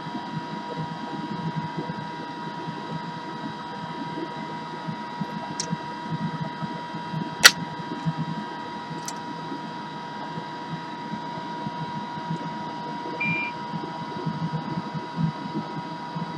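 Steady whir of a hot air rework station and a fume-extractor fan running at the workbench, with a constant whine. A single sharp click comes about halfway through.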